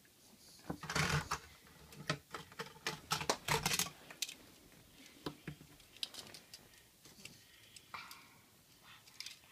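Plastic Lego bricks and a Lego truck model clicking and knocking as they are handled and set down on a wooden table: a quick run of clicks and knocks in the first four seconds, then scattered taps.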